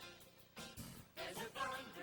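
Music from a stage show, dipping briefly, with a voice coming in over it a little over a second in.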